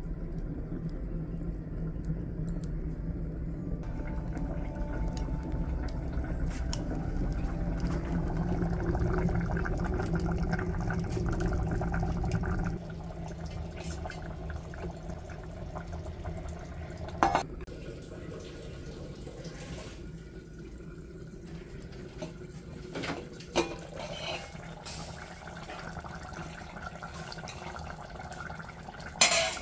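Wood fire burning in a firewood hearth, a steady low rumble, giving way after about 13 seconds to beef curry simmering and bubbling in a clay pot. Three sharp knocks stand out in the second part.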